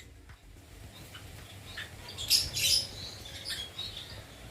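Lovebirds chirping: scattered short high-pitched calls, with a louder cluster of chirps about two and a half seconds in.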